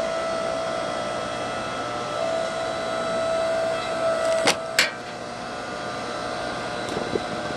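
8-ton hydraulic log splitter running, its motor and pump giving a steady whine. About four and a half seconds in, two sharp cracks come close together as the log splits, and the whine that had grown stronger just before them drops back.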